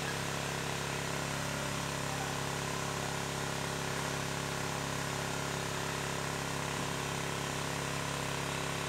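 A steady motor-like drone at a fixed pitch and an even level, with no change in speed.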